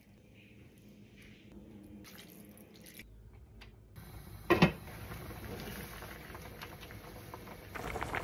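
Faint pouring and stirring of seasoning in a stainless steel pot. Then a pot of stew simmers, and about halfway through a glass pot lid clinks sharply once against the steel pot with a short ring. The bubbling and crackling grow louder near the end.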